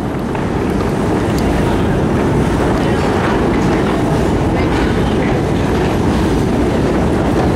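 Long deep-level metro escalator running: a steady rumble with a faint clatter from the moving steps and machinery.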